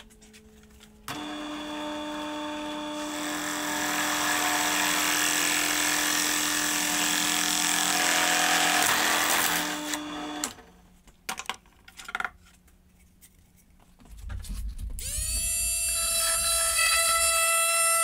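Drill press motor switched on about a second in and running steadily while the bit bores through a PVC pipe, stopping suddenly about ten seconds in; a few handling clicks follow. About fifteen seconds in, an oscillating multi-tool starts up, its pitch rising quickly to a steady high buzz as its segment blade goes into the PVC pipe.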